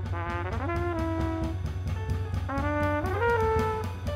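Jazz trumpet playing a phrase that twice slurs upward into a held note, over plucked double bass and drum kit.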